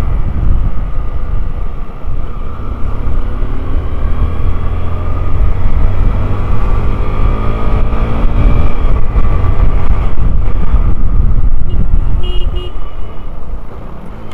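Motorcycle engine running under heavy wind rumble on the microphone while riding in traffic, its pitch rising gradually as the bike speeds up. A few quick vehicle-horn toots near the end.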